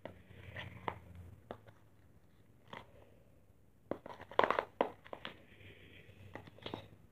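Spoon stirring a sticky mix of white glue and shaving cream for fluffy slime in a bowl: soft squelches and spoon scrapes, coming thickest about four to five seconds in.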